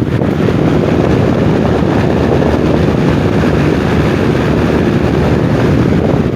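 1970s Lakewood 20-inch box fan running on high, its airflow blowing straight onto the microphone as loud, steady wind noise.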